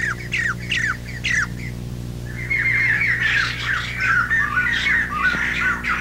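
Jay thrushes singing: a string of sharp, steeply falling whistled notes, then from about two seconds in a rapid, dense run of chattering notes. It is a duet, with the male and female of a pair trading notes so closely that it sounds like one bird's song. A steady low hum runs underneath.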